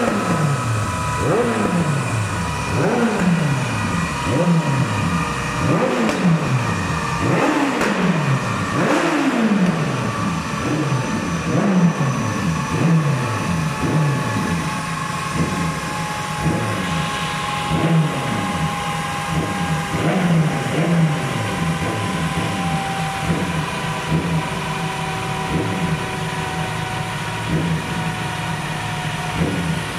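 Yamaha sport bike engine on a chassis dyno, blipped up and let fall about every second and a half at first, then running steadier with small blips. Behind it, a thin whine from the spinning dyno roller and rear wheel slowly drops in pitch as they coast down with the clutch pulled in, the dyno's coast-down phase after a run.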